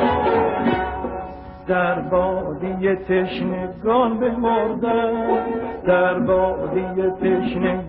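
Persian classical music in dastgah Nava: a male voice sings held, ornamented notes over a traditional string and percussion ensemble. The music dips about a second in, then a new phrase enters.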